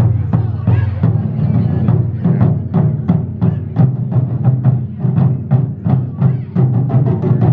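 Live taiko drumming: a steady, driving rhythm of heavy drum strikes, about three a second, with lighter sharp clacks among them.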